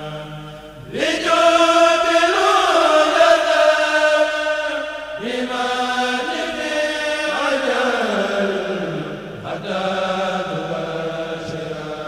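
Male Mouride devotional chanting of a khassida, sung unaccompanied into microphones. The voice holds long, ornamented notes that bend and slide downward, with a new phrase starting about a second in and another about five seconds in.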